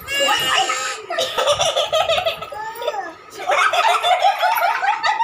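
Laughter in quick, repeated ha-ha pulses, more than one voice overlapping, with a brief lull about three seconds in.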